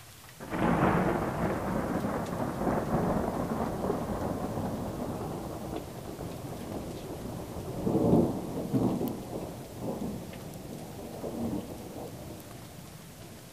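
A thunderclap breaks suddenly about half a second in and rolls on as a long rumble. The rumble swells to its loudest a little past the middle, rolls a few more times and then dies away.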